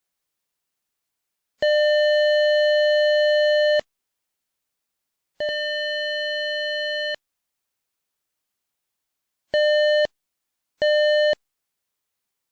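Doorbell circuit sounding a steady buzzing tone four times: one long buzz of about two seconds, a second slightly quieter one, then two short buzzes close together near the end.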